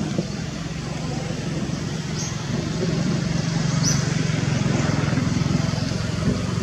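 A motor engine running steadily with a low, fast-pulsing hum that grows louder around the middle and eases off near the end, with a few short high chirps over it.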